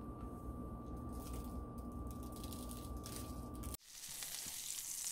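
Steady low hum with a thin, steady high whine, which cuts off abruptly about four seconds in. A high, even hiss follows, like a steak sizzling on a grill grate.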